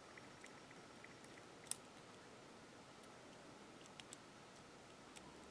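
Near silence with a few faint clicks of a small screwdriver working a tiny headless screw through the drive gear of a brass N scale locomotive's gearbox. One sharper click a little under two seconds in.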